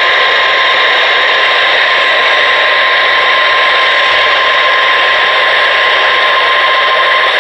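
Steady radio static hiss from a receiver, with a steady tone underneath that cuts off near the end.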